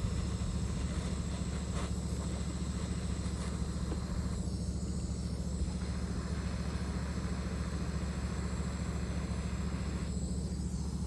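Handheld soldering torch burning steadily while heating a brass connector lug, an even, unbroken low sound with no starts or stops.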